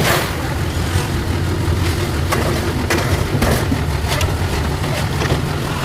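An engine running steadily with a low hum, with several sharp knocks and scrapes of work spread through it.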